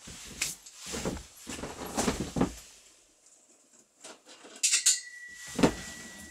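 Chainsaw chains clinking and rattling as they are handled on a metal workbench, in short bursts with a lull about halfway through.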